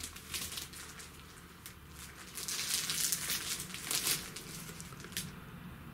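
Cardboard and plastic packaging rustling and crinkling as a large painting is handled and lifted out of its box, with a few sharp clicks, loudest in the middle.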